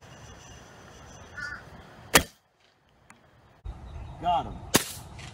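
A .22 calibre break-barrel air rifle fires: a single sharp crack about two seconds in, after which the sound drops out for about a second. A second sharp crack comes near the end, and a bird calls twice in between.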